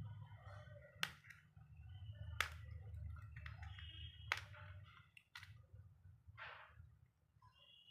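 Three sharp clicks about a second and a half apart, with fainter taps and a short scrape, as the small parts of a keypad phone are handled during reassembly, over a low steady hum.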